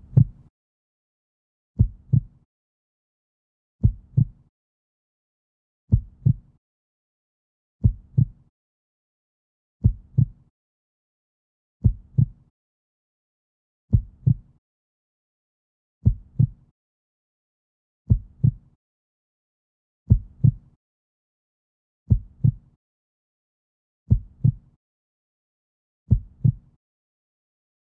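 Heartbeat sound effect: a deep double thump, repeating evenly about every two seconds, with silence between the beats.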